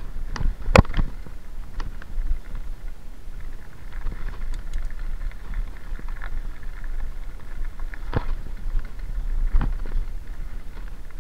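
Mountain bike rolling down a rocky gravel track: tyres crunching over stones, with wind rumbling on the camera's microphone. Sharp knocks and rattles from the bike hitting rocks, the loudest about a second in and two more near the end.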